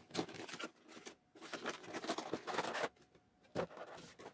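Nendoroid figure box being opened and its clear plastic blister tray slid out and handled: soft intermittent scraping and crinkling of cardboard and thin plastic, in short clusters with brief quiet gaps.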